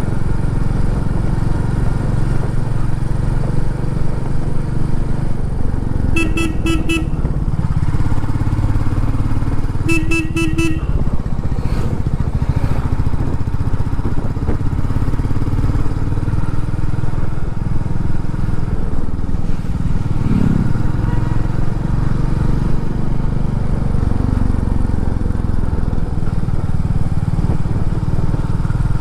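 Motorcycle engine running steadily on the move, with a low rumble of wind on the microphone. A horn beeps twice, about six and ten seconds in, each blast about a second long.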